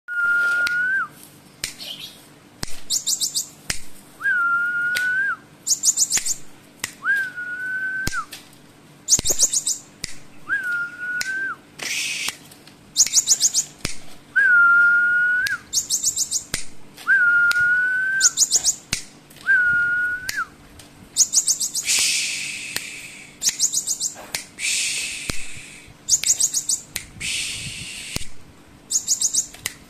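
Gelatik batu (cinereous tit) singing a varied song: a clear whistled note held about a second, bending at each end, alternating again and again with quick runs of very high ticking notes. From about 22 seconds in, three harsh rasping calls are mixed in.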